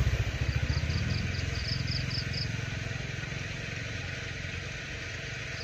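A small engine running with a low, even pulsing beat, fading as it moves away. A high chirping, about four pips a second, sounds briefly in the first half.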